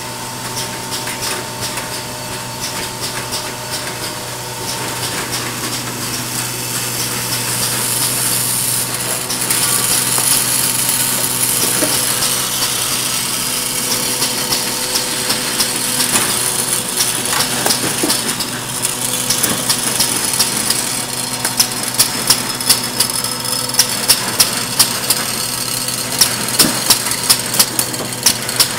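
Spring detangler and feed machine running, with a steady hum and hiss. From about two-thirds of the way through, its mechanism cycles with sharp clacks about twice a second.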